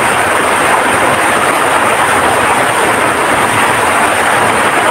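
Heavy rain pouring down in a loud, steady rush.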